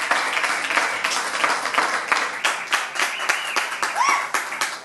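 Audience applauding and cheering, with a couple of short high cheers. The clapping thins to scattered claps near the end.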